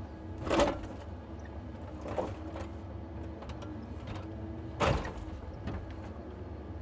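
Timber truck loading crane at work: a steady engine and hydraulic hum, with heavy knocks of logs in the grapple. The two loudest knocks come about half a second in and about five seconds in, with lighter ones between and after.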